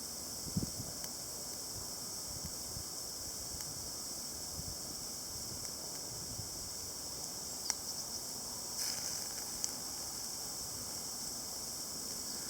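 Steady high-pitched chorus of insects such as crickets, with a few sharp clicks and soft low knocks scattered through it.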